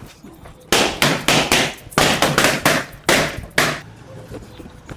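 A quick series of about seven hard, sharp blows over some three seconds, each with a short ringing tail.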